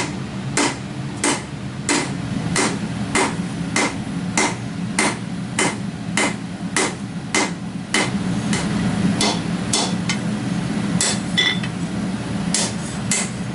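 Hammer blows on 5160 spring steel at the anvil as a blade is forged, in a steady rhythm of about one and a half blows a second, with a few ringing blows near the end. A steady low drone runs underneath.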